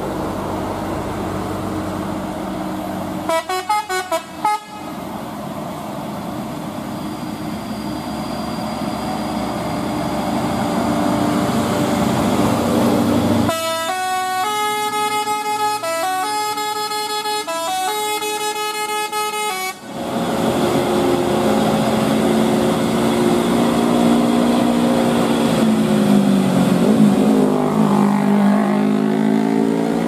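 A Mitsubishi Canter dump truck's multi-tone 'telolet' horn plays a quick flurry of notes about three seconds in, then a longer stepping melody from about 13 to 20 seconds. Underneath, the truck's diesel engine runs, and its note rises and falls in the second half as it pulls uphill.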